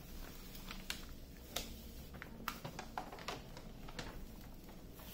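Protective release paper being peeled back from the sticky adhesive surface of a diamond painting canvas, giving soft, irregular crackles and ticks.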